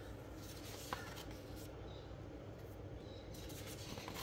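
Faint rustle of paper pages being turned in a ring-bound planner, with a single light tap about a second in.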